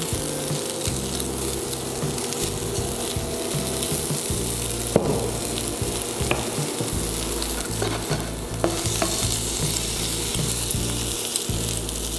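Diced pork sizzling in fat in a hot non-stick frying pan, a steady hiss, while a wooden spoon stirs the pieces, with scattered small clicks and one sharper tap about five seconds in.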